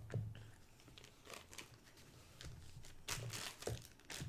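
Packaging being handled: irregular crinkling and rustling with small knocks, busier in the last second or so.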